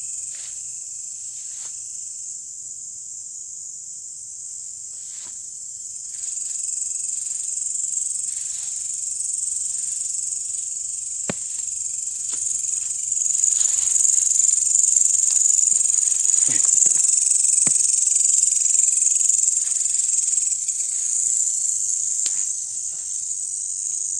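A chorus of night insects keeps up one high, unbroken shrill sound, getting louder about halfway through. A few sharp snaps and short rustles come from someone moving through the undergrowth.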